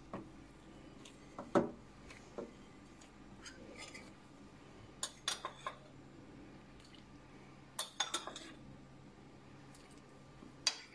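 Metal spoon and fork clinking against a glass mixing bowl and a mug while pastry dough is mixed by hand. The sound comes as scattered short clinks in a few small clusters, the loudest a single knock about a second and a half in.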